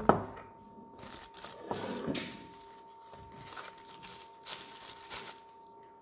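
A thump right at the start, then rustling and crinkling as an orange tissue-paper honeycomb pumpkin decoration is handled and set on top of a real white pumpkin.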